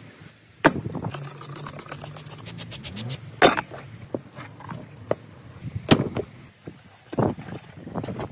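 Knobby rubber motorcycle tyre and inner tube being handled and worked onto a spoked wheel: rubber rubbing and squeaking, with several sharp knocks and a stretch of quick ticking.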